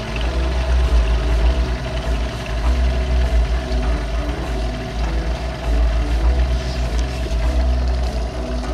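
Small outboard motor running steadily, pushing a fishing boat along, with a deep rumble and a constant hum.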